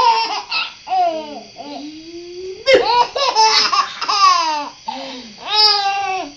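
Baby laughing in a string of high-pitched bursts, the pitch sliding up and down, with short gaps between.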